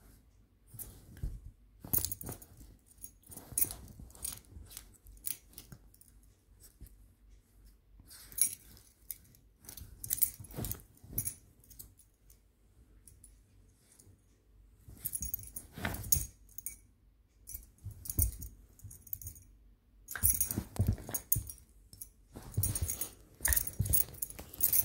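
A small dog rolling and pawing about on a ribbed fabric blanket: irregular bouts of rustling and scuffling cloth, a few seconds each, with quieter gaps between.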